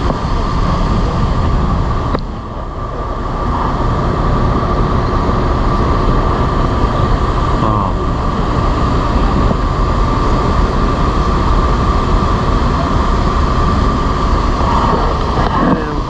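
Steady machinery noise with a constant high whine, mixed with wind rumbling on the microphone, as electric towing locomotives on the lock wall pull the ship forward on cables. The sound dips briefly about two seconds in.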